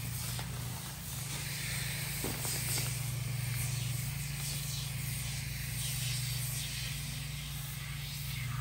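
Aerosol can of Simple Green foaming cleaner spraying in repeated hissing bursts, over a steady low hum.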